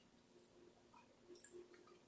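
Near silence: a few faint clicks of quiet chewing over a faint steady hum.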